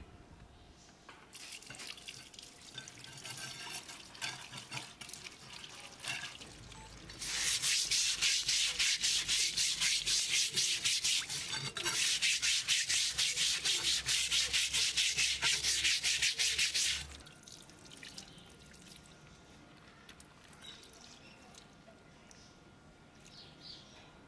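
A stiff scrub brush scrubbing a wet, rusty steel cleaver blade in rapid back-and-forth strokes. The scrubbing starts lightly, grows much louder and faster about seven seconds in, and stops about seventeen seconds in.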